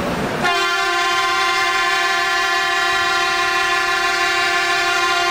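Shinkansen E5 series train sounding its horn at departure: one long, steady blast that starts about half a second in and holds.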